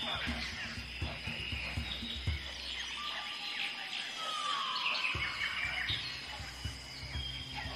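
Rainforest soundscape: many bird calls and chirps with short rising and falling whistles over a steady high-pitched drone. Underneath runs a low music bed with soft beats, which drops out about three seconds in and comes back about five seconds in.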